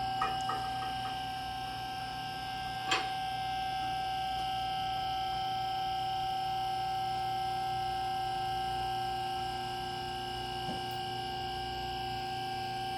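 QuickJack car lift's electric hydraulic pump running steadily with a constant whine, raising the car. A sharp click comes about three seconds in.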